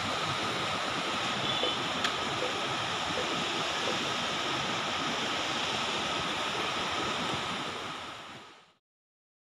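Steady rush of river water running over rocks, fading out near the end.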